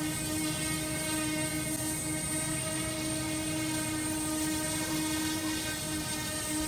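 L100 brushless quadcopter drone's motors and propellers running with a steady, high propeller whine.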